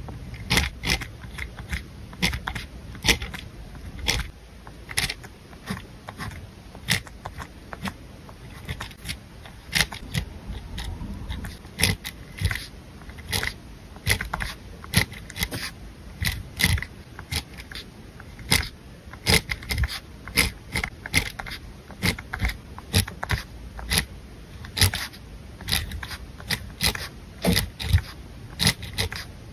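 A fine metal-tipped pen writing on lined paper: its tip scratches and taps against the page with each letter stroke, giving irregular sharp ticks a few times a second.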